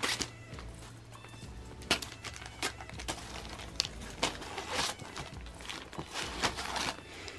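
Crumpled brown paper crinkling and rustling in irregular sharp bursts as a cat shifts and paws on it and a wand toy's cord drags across it.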